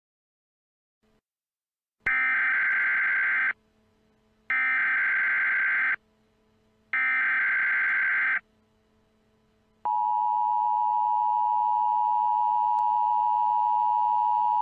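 Emergency Alert System (EAS) tones. About two seconds in come three bursts of SAME header data tones, each about a second and a half long with a second's gap between them. About ten seconds in, the steady two-tone attention signal starts and holds.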